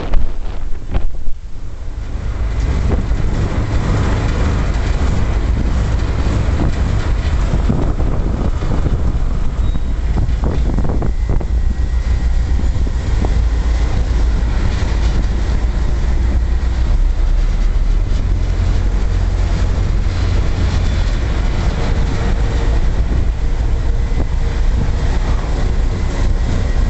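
Engine of a small passenger ferry running with a steady low rumble, heard on board, with wind buffeting the microphone in the first couple of seconds.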